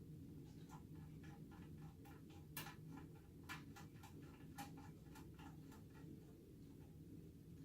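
Faint quick run of light metallic clicks and taps, about three to four a second with a few louder ones, as a small knob is fitted by hand to the drill press's pulley-cover door.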